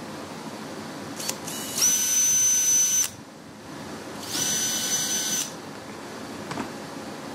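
Cordless drill drilling pilot holes into a wooden beehive frame. There is a brief blip, then two runs of about a second each with a steady high whine.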